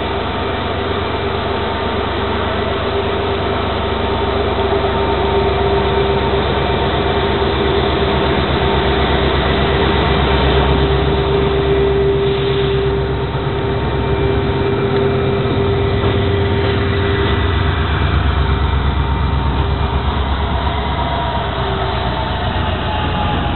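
EMD WDP4 (GT46PAC) diesel locomotive's 16-cylinder two-stroke engine working hard as it pulls a Shatabdi Express away from a station stop. A steady high hum sits over a deep throb and grows louder as the locomotive comes closer. Near the end it passes, and one tone drops slightly in pitch.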